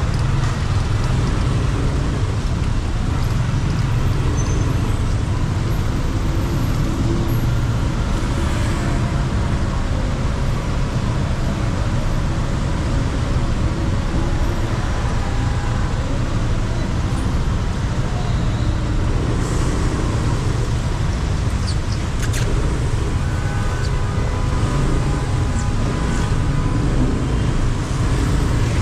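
City traffic heard from a moving motorbike: a steady low rumble of engine and road noise, with surrounding cars and buses. A few short high hissing sounds come about a third of the way in and again about two-thirds of the way in.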